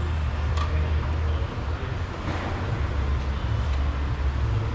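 Steady low mechanical hum, with a light click about half a second in.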